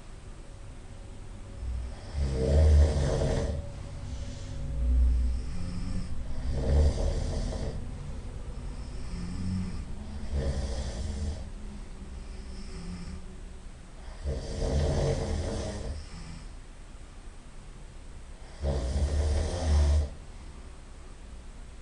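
A sleeping person snoring heavily, with six deep rattling snores on the in-breath, one every three to four seconds. Quieter hissing out-breaths fall between them.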